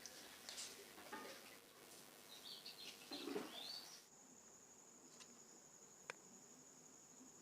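Faint scattered clicks and scrapes with a few short chirps, then, after an abrupt change about halfway through, a steady high-pitched insect drone, crickets, with a single sharp click.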